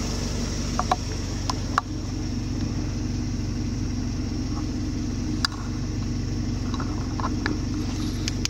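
Old car's petrol engine idling steadily at about 700–750 rpm, with the engine computer controlling the idle after the idle-adjust wire has been unplugged. A few light clicks sound over it.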